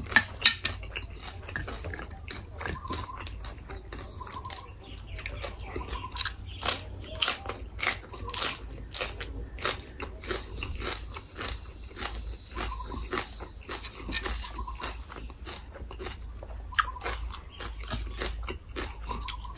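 Close-miked chewing of crunchy green papaya salad (som tam), with many short, crisp crunches throughout.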